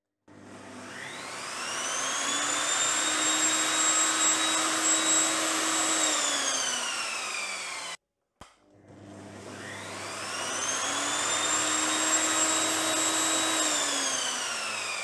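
Evolution Rage 5-S table saw's motor and blade started twice through a newly fitted soft start module. Each time the whine rises gradually to full speed over two or three seconds, runs steadily, then falls in pitch as the blade spins down after switch-off. The gentle run-up, without a sudden kick at start, is the soft start module working.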